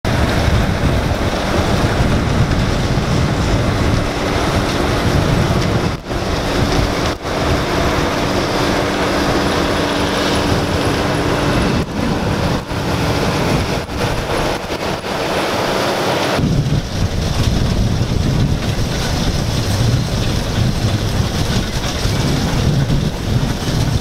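Gleaner M2 combine running in the field while harvesting soybeans: a steady machinery drone and rush with a constant hum. The sound changes abruptly about two-thirds of the way through.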